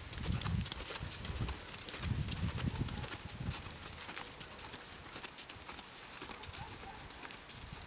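A horse's hoofbeats as it jogs on arena sand: soft, irregular thuds with light ticks, growing fainter after about four seconds as it moves away.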